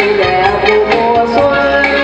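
A woman singing a lively Vietnamese song into a microphone, accompanied by an electronic keyboard with a steady percussion beat.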